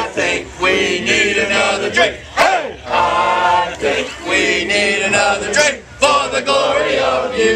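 A crowd of football fans singing a team drinking song together, many voices in unison.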